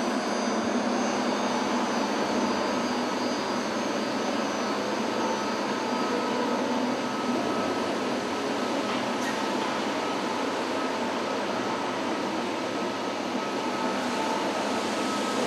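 Steady background noise of a large machine-assembly hall: an even, hiss-like hum with a few faint steady tones running through it.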